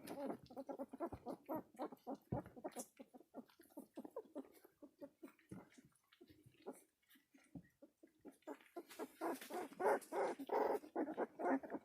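Three-week-old border collie puppies in a pile: scattered short clicking and smacking sounds, then from about eight and a half seconds in a quick run of pitched puppy whimpers, several a second.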